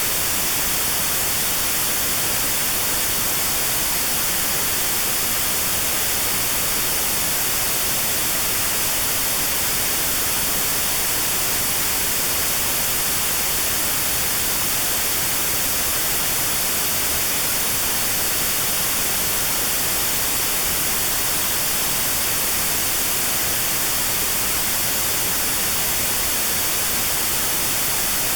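Steady synthetic white noise with a narrow band around 4 kHz cut out (notch-filtered), a constant even hiss for tinnitus sound therapy.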